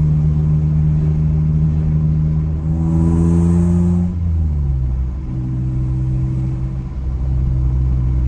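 Dodge Stealth R/T's naturally aspirated V6 heard from inside the cabin while driving, through a full aftermarket exhaust (stainless downpipe, high-flow cat, 2.5-inch Maximal single-shot muffler). A steady drone climbs briefly in pitch about three seconds in, then drops and settles into a steady, lower cruise drone.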